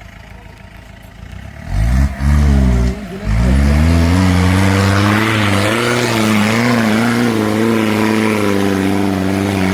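Mahindra 4x4's engine revved hard in two short bursts a couple of seconds in, then held at high revs with its pitch wavering up and down.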